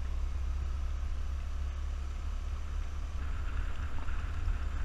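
Suzuki Burgman 200 scooter riding along a gravel road: a steady low rumble of wind buffeting the microphone over the engine and tyre noise, with a brighter hiss joining about three seconds in.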